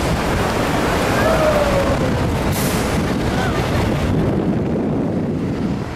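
Wind buffeting the microphone over a dense roar of city street noise and traffic; the hiss eases somewhat near the end.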